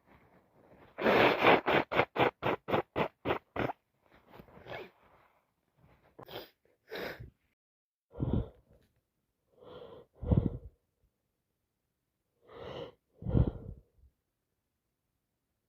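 A woman with a heavy head cold building up to a sneeze. Starting about a second in, there is a quick run of about ten short, shaky breaths, roughly four a second. After that come spaced, gasping breaths, several of them in pairs, without the sneeze breaking.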